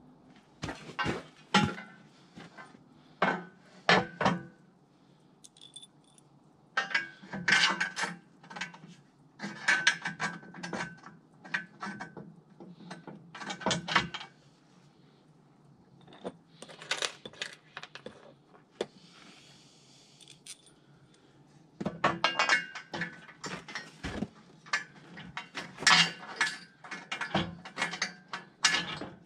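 Irregular bursts of sharp metal clinks and clatters from hand assembly of a sawmill: the sheet-steel blade cover is handled and fitted onto the saw head, and loose bolts and washers clink. There is a quieter pause past the middle.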